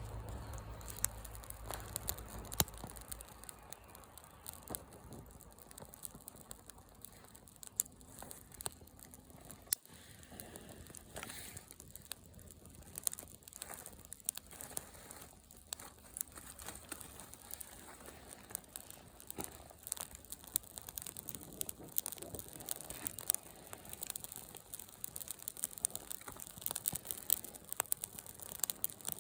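Wood bonfire crackling, with irregular sharp snaps and pops.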